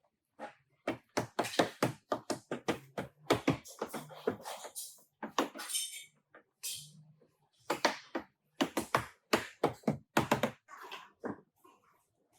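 Irregular series of sharp knocks and taps in quick clusters, with a short hiss about halfway through.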